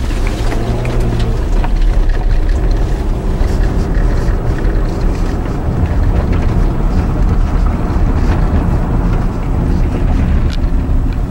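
Vehicle driving on an unplowed, snow-covered dirt road: a steady low rumble of tyres and drivetrain, with a hum in the first couple of seconds and scattered clicks and knocks.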